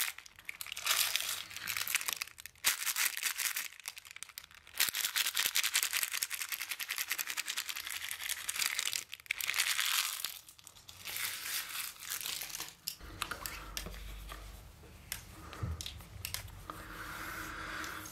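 Paper packaging of an iPhone 13 box crinkling and tearing as it is opened. It comes in several bouts with short pauses, and turns to quieter handling about thirteen seconds in.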